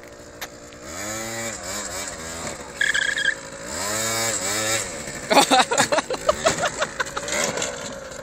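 A small two-stroke MBK Booster scooter engine revs up and drops back twice, with a brief high squeal between the revs. From about two-thirds of the way in comes a run of short, sharp clattering sounds as the scooter goes down on the pavement.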